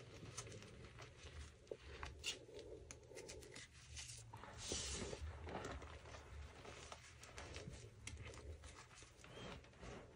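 Hands squeezing and digging through a heap of powdered Friction Labs gym chalk: soft crunching with many small crackles, and a louder rush of shifting powder about four and a half seconds in.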